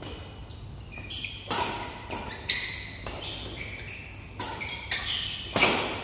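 Badminton rackets striking the shuttlecock in a fast rally, several sharp hits a second or so apart, with players' shoes squeaking on the court floor in between.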